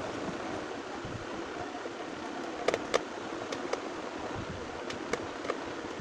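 Sharp clicks and knocks of a table fan's plastic base and tools being handled, two loudest about three seconds in and a few lighter ones near the end, over a steady hiss.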